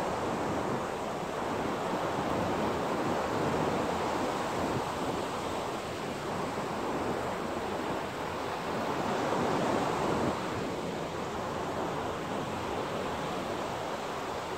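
Surf breaking and washing up a sandy beach: a steady rushing that swells and eases every few seconds, with some wind buffeting the microphone.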